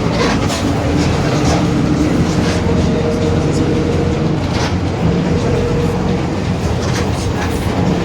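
Mercedes-Benz OF-1721 BlueTec 5 bus running at a steady pace: a continuous engine and drivetrain drone, with the differential droning. Short rattles and clicks come through now and then.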